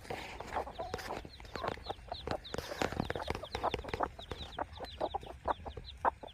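A brood of newly hatched chicks peeping rapidly and continuously, with a broody hen clucking among them.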